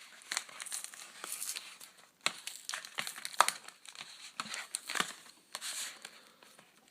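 Pokémon card pack packaging being crinkled and torn open by hand, in a run of irregular crackles and sharp snaps.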